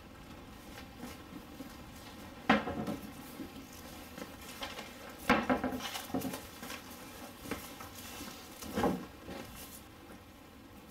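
A handful of sharp knocks and thuds, irregularly spaced, with soft clicking and rustling between them, in a small room.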